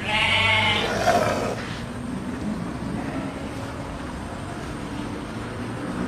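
A goat in a crowded herd bleats once, a wavering call lasting about a second and a half, followed by quieter background sound from the penned herd.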